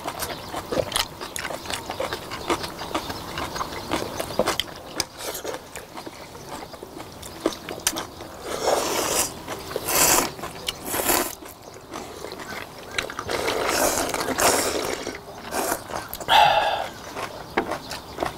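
Several people slurping cold noodles in broth and chewing, with chopsticks clicking and tapping against stainless steel bowls. Quick clicks fill the first half; from about halfway on come several longer slurps, each lasting a second or so.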